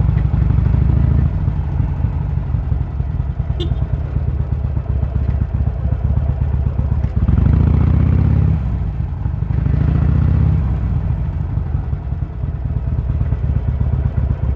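Harley-Davidson Sportster's V-twin engine running under way in traffic, a deep steady engine note that swells twice, about seven and ten seconds in, as the throttle is opened.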